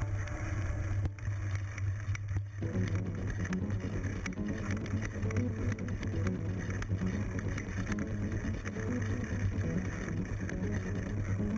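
Mountain bike riding over a rough, leaf-covered forest trail, heard through a handlebar-mounted GoPro in its housing: a steady low rumble with frequent sharp rattling clicks from the bike and mount over bumps.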